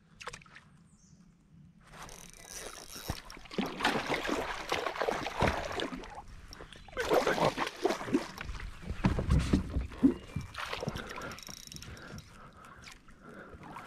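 Water splashing and sloshing beside a kayak in irregular bursts as a hooked bowfin is fought at the boat, with a few knocks of gear against the hull. The busiest splashing comes in two spells, a few seconds in and again past the middle.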